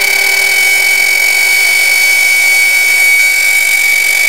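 DeWalt D26204K compact router running at speed with a steady high whine, its 6 mm straight cutter routing a groove into a board as it is pushed along a guide rail. A dust extractor runs with it.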